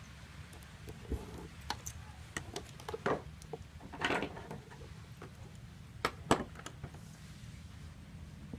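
Hand-stitching a leather baseball held in a metal ring clamp: scattered light clicks and taps, with a few short rasps as the thread is drawn through the leather, loudest about three, four and six seconds in.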